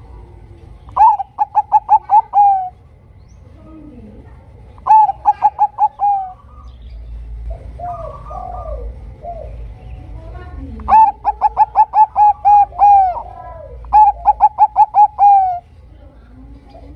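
Zebra dove (perkutut, Bangkok strain) in full song: four phrases of rapid staccato cooing notes, about five a second, each ending on a longer slurred note, with softer coos between the phrases.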